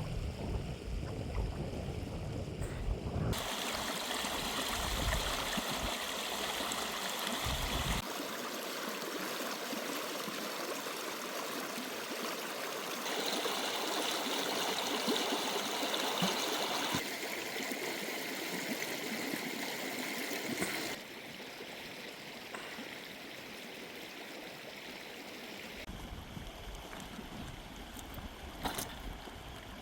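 Steady rushing outdoor noise like running water. Its character changes abruptly every few seconds, with a few sharp clicks near the end.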